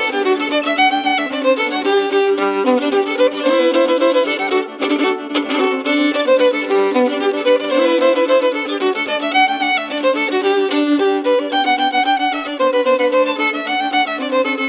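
Fiddle playing a brisk folk dance tune, a quick run of notes over a steady lower note.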